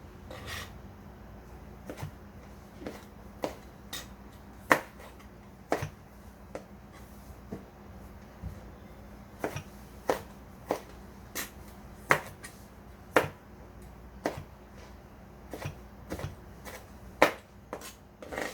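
Scattered sharp knocks and clicks of kitchen utensils, about one a second and uneven in strength, over a steady low hum.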